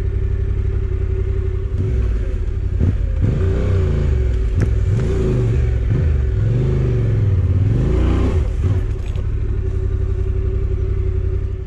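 Motorcycle engine being ridden through soft sand and gravel, its revs rising and falling again and again, with a few sharp knocks.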